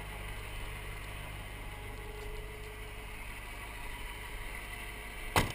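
Caterpillar 3208 V8 diesel in a 1985 Ford F8000 truck idling steadily, with a single sharp knock near the end.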